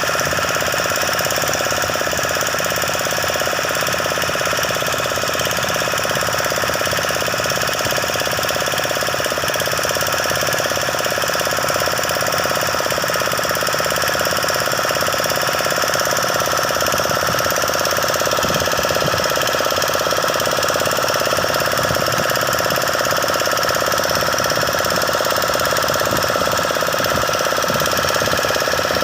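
An engine running steadily at an even speed, with no change in pitch or loudness.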